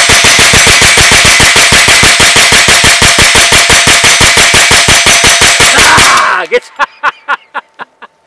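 Rapid, sustained fire from a pistol-caliber carbine, about seven or eight shots a second for about six seconds. The firing stops suddenly about six seconds in, and a fading run of short strokes follows.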